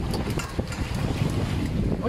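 Strong wind buffeting the microphone in uneven gusts, a low rumbling noise, over choppy sea water.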